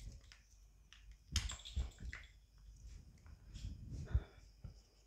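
Faint handling noises: a few scattered light knocks, clicks and rustles, loudest about one and a half seconds in and again around four seconds in.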